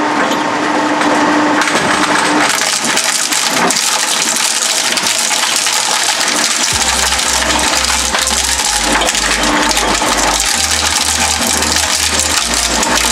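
Twin-shaft shredder's steel cutter discs crushing a plastic computer keyboard: dense cracking and clattering of plastic keys and fragments breaking and rattling between the shafts.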